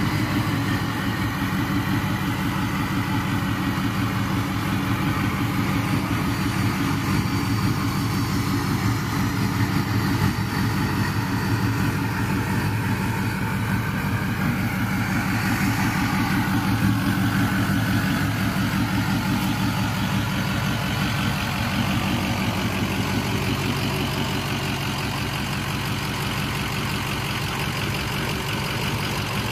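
Ford 6.0-litre Powerstroke V8 turbodiesel idling steadily.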